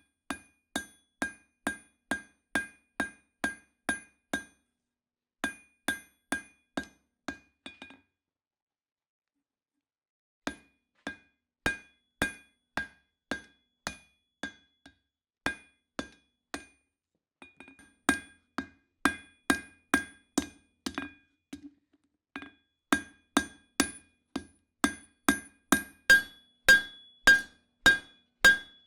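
Forging hammer striking steel on an anvil in steady blows, about two to three a second, each with a bright metallic ring. The hammering stops for a couple of seconds partway through and is louder near the end.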